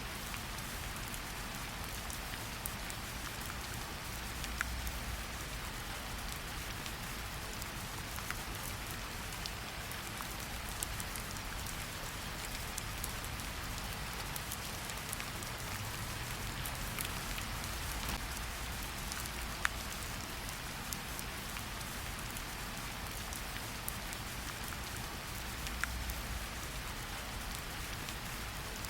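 Steady rain falling in a forest, an even hiss with a low rumble underneath. Now and then a single close drop lands with a louder tick.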